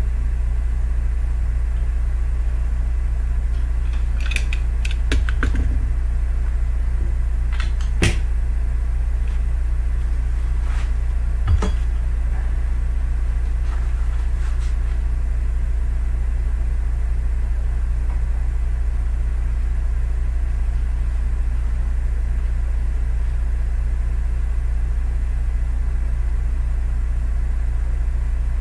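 Steady low electrical hum, with a few light clicks and taps about four, eight and twelve seconds in from a plastic HP 304 ink cartridge being handled.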